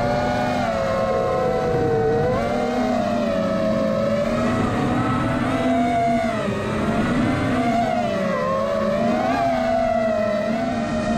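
FPV quadcopter motors and propellers whining in flight, several close pitches rising and falling together as the throttle changes.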